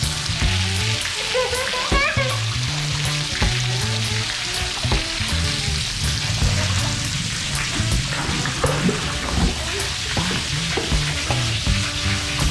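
Background music with a bass line, over a steady crackling hiss.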